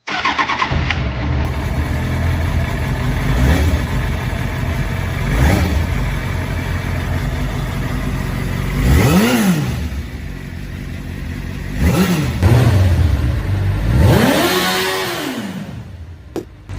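2001 Suzuki GSX-R750's inline-four engine running and being revved, with three throttle blips that rise and fall in pitch, the last one longer, before it settles back down near the end.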